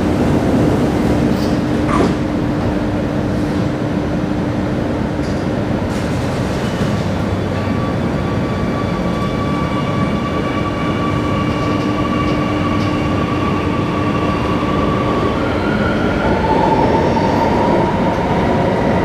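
Singapore Circle Line MRT train heard from inside the carriage: a steady rumble with the whine of its electric drive, whose tones shift pitch about sixteen seconds in.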